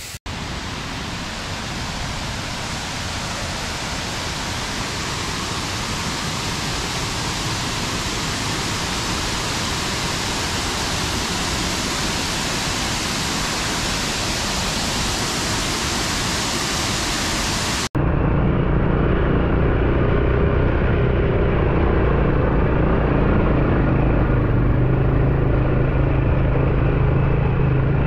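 Banyuwana waterfall's water rushing in a steady, even hiss-like roar of falling water for about eighteen seconds. Then the sound cuts off abruptly and a louder, steady low engine hum takes over.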